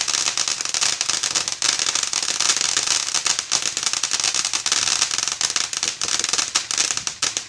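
Consumer firework crackling: a dense, rapid run of small pops over a steady hiss, cutting off abruptly right at the end.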